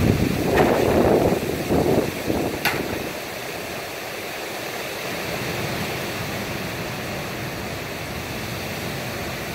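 Heavy rain pouring steadily in a thunderstorm, a continuous hiss of rainfall. Louder, surging bursts of storm noise fill the first two to three seconds, with one sharp click just before the noise settles.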